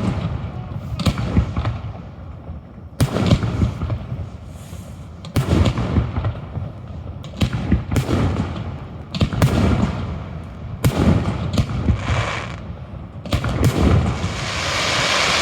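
Aerial fireworks shells bursting overhead: about a dozen sharp booms, often in pairs, each trailing off in a rolling echo. Near the end a steady hiss builds up.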